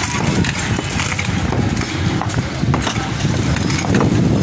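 Concrete-block walls being broken up by hand: scattered sharp knocks of tools striking masonry over a continuous low rumbling background noise.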